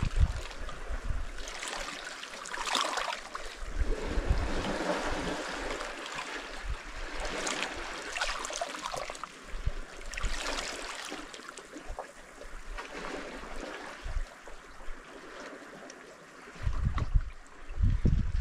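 Small sea waves lapping and trickling against shoreline rocks, swelling and fading every few seconds. Near the end a low rumble of wind hits the microphone.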